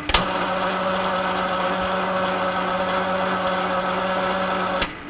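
Metal lathe running: a click switches in a louder, steady mechanical drive whine, which cuts out with another click near the end, leaving the quieter hum of the running lathe.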